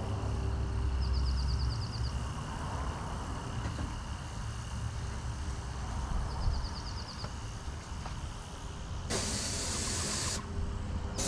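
Paint spray gun on a house-painting job: about nine seconds in, a loud hiss of spray lasting a little over a second, over a steady low rumble.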